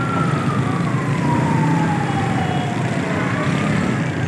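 A siren-like wail, one tone that falls slowly and steadily in pitch, over the steady hubbub of a busy street.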